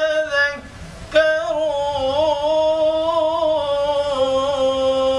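A man chanting Quranic recitation (tilawah) in a melodic, elongated style. A phrase ends just after the start, then comes a brief pause for breath about a second in, then one long held note that wavers in pitch before settling steady. This is the drawn-out closing word of the verse, "yatadhakkarun".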